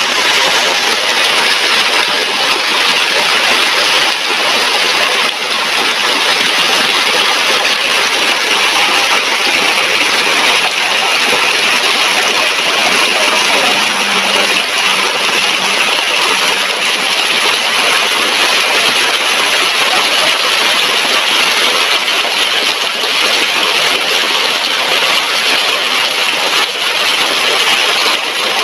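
Heavy rain pouring steadily, a loud, even hiss without a break.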